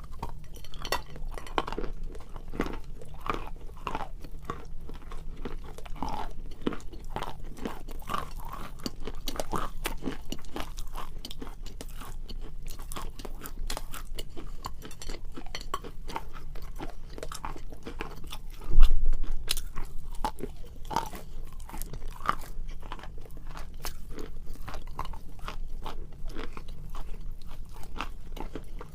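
Wet chalk being bitten and chewed close to the microphone: a steady run of crisp, irregular crunches. One heavy low thump comes about two-thirds of the way through.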